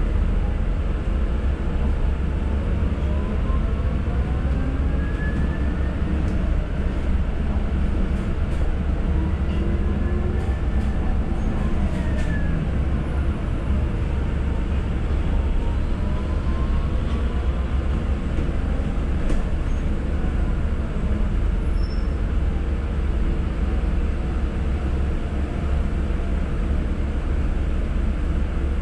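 Cabin noise inside a moving city bus: a steady low rumble from the drivetrain and road, with a whine that rises and falls in pitch a few times.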